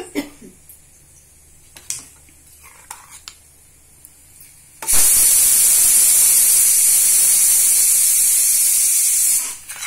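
A few light knocks of a spoon against a steel kadai while stirring. Then, about five seconds in, a pressure cooker whistle lets off steam in a loud, steady hiss for about four and a half seconds before cutting off abruptly: the cooker's whistle marking the ghee rice as done.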